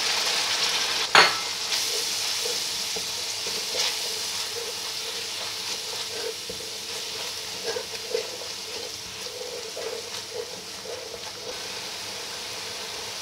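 Blended onion-and-yogurt paste sizzling in hot oil with ginger-garlic paste while a spatula stirs and scrapes it around the pan. A sharp knock sounds about a second in, and the sizzle gradually gets quieter.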